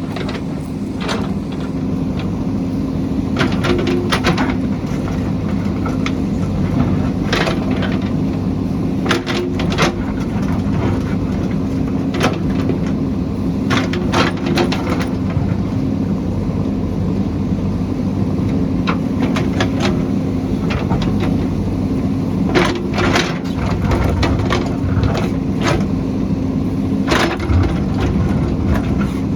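JCB backhoe loader's diesel engine running steadily while it digs, with repeated sharp cracks and scrapes of the bucket breaking into rock and soil.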